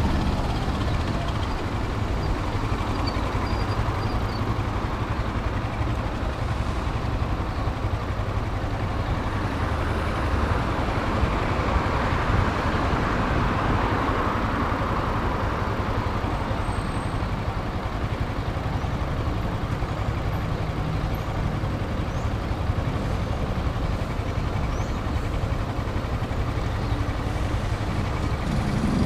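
Motorcycle engine running steadily amid city street traffic, with a low rumble and a rush of traffic noise that swells a little about halfway through.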